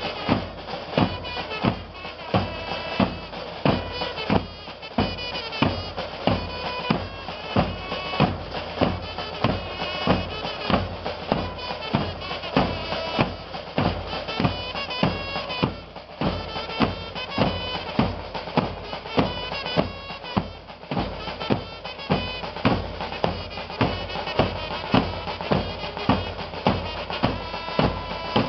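Marching band playing: bass drums and other drums beat a steady rhythm under a reedy wind-instrument melody.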